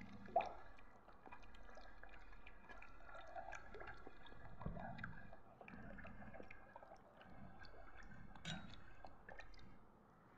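Spoon stirring and mashing rice flour into a thick palm-jaggery and coconut-milk liquid in a brass pan to break up the lumps: faint wet squishing and slopping, with a few light clicks of the spoon against the pan.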